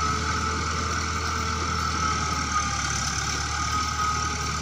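Bulldozer's diesel engine running steadily, with a steady high whine over the low engine note.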